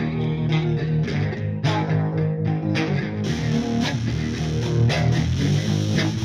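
Instrumental introduction of a rock song: guitars and bass guitar played together, with repeated strummed or picked chords.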